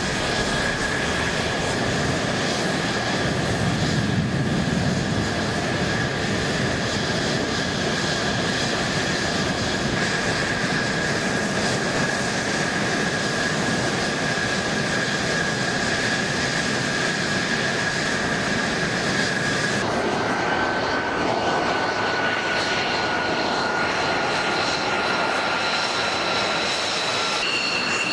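F-16 fighter jets' turbofan engines running at taxi power: a steady high whine over a constant rush of jet noise. The whine drops slightly in pitch about two-thirds through and jumps higher near the end as the shot changes.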